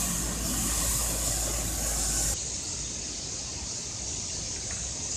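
Street-sweeper truck running, with a steady engine rumble and a high hiss of brushes and water. The sound cuts off suddenly about two seconds in, leaving a quieter, steady hiss.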